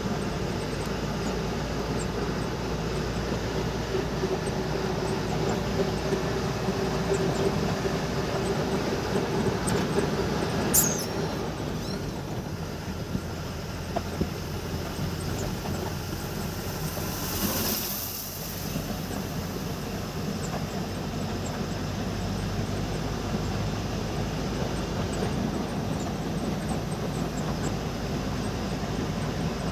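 Steady running rumble of a moving train. A humming tone fades out about a third of the way in, and there is a brief whoosh about two-thirds of the way through.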